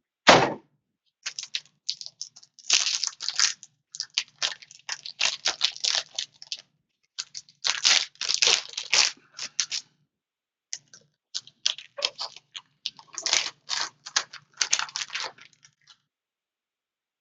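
Plastic wrap on a sealed trading card box being torn open and crinkled, in clusters of short crackling bursts with pauses between, under a faint steady low hum.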